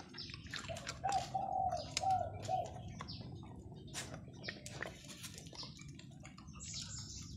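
Bird calls: a run of about five short, evenly spaced cooing notes, like a dove's, with scattered high chirps from small birds. Sharp clicks and knocks are scattered through it.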